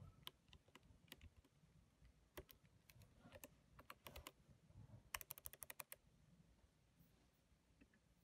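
Faint typing on a laptop keyboard: irregular key clicks, with a quick run of about ten keystrokes around five seconds in, then only a few scattered clicks near the end.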